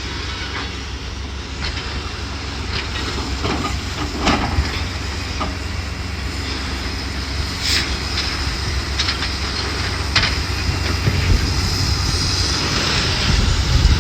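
Demolition machinery running with a steady low rumble, punctuated by scattered sharp clanks and knocks of metal and debris, growing louder near the end.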